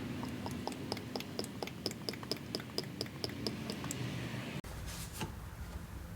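Fresh engine oil glugging as it is poured into the engine through a cut-down soda bottle used as a funnel. It makes a quick, even run of bubbling clicks, about five a second, which stops about four seconds in.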